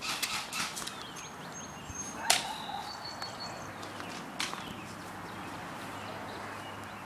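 Airsoft guns firing in short, sharp snaps: a few near the start, the loudest a little over two seconds in, and another about four seconds in.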